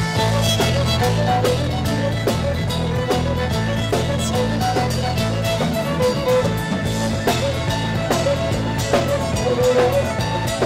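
Live band music: an amplified fiddle plays a lively melody over a steady drum-kit beat and a bass line.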